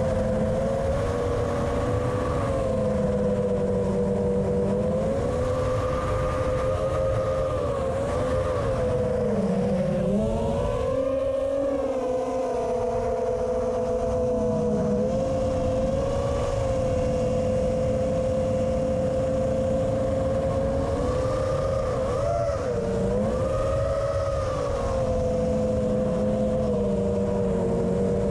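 Quadcopter's electric motors and propellers whining in flight as a steady multi-tone hum, the pitch dipping and swooping with throttle changes about a third of the way in and again near the end. A low rumble of wind on the quad-mounted GoPro's microphone lies beneath.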